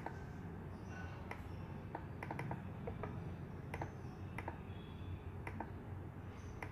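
Computer mouse and keyboard clicks: a sparse, irregular series of faint, short clicks over a low steady hum.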